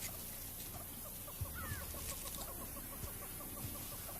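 A bird calling: a steady run of short, evenly spaced notes, about six a second, starting a little over a second in, with a brief rising whistle just before it. A few soft low thuds sit underneath.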